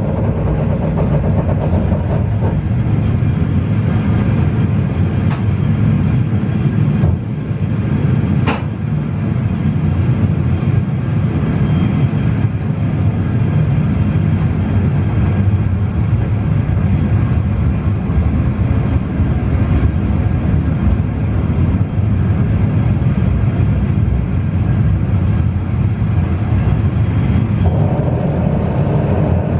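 Matterhorn Gotthard Bahn train rolling along the track, heard from its open-air viewing car: a steady rumble of wheels and running gear. Near the end the sound fills out and grows as the train runs into a tunnel.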